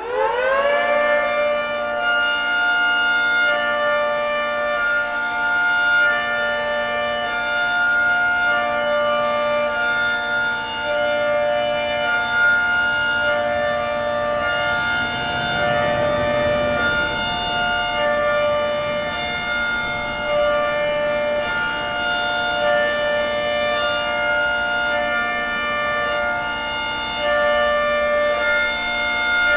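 Federal Signal 3T22A three-tone outdoor warning siren sounding its Hi-Lo signal. It finishes winding up to full pitch right at the start, then switches back and forth between a high chord and a low chord every second or so.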